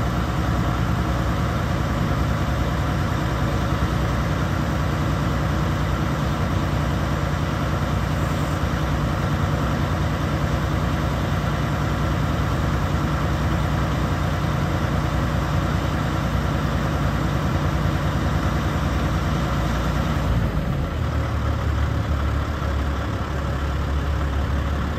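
2007 Sterling LT9500 Vac-Con vacuum truck's diesel engine running steadily. A little after twenty seconds in, the engine note drops lower and the higher part of the sound fades as the engine slows.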